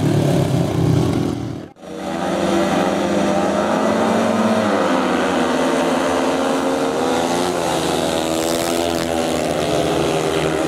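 Speedway motorcycles' 500 cc single-cylinder methanol engines racing at full throttle: first one bike going past, then, after a brief dropout just under two seconds in, several bikes together accelerating, their engine notes overlapping and shifting in pitch.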